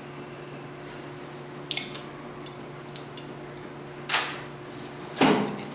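Light metallic clinks and jingles as a restrained dog shifts on a metal-edged exam table, over a steady low hum. Near the end come two short, louder whooshes of noise, the second the loudest.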